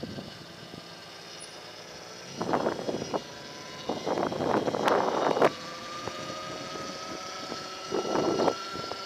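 Throne SRPNT electric motorbike riding along, its motor giving a steady thin whine that rises slowly in pitch in the second half as it speeds up. Three loud gusts of wind buffet the microphone, the longest about four to five seconds in.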